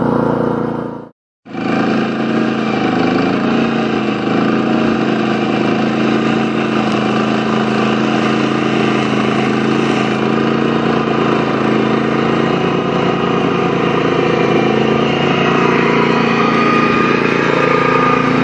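Pasquali two-wheeled tractor's engine running steadily while driving a Berta flail mower through long grass, with a brief break about a second in.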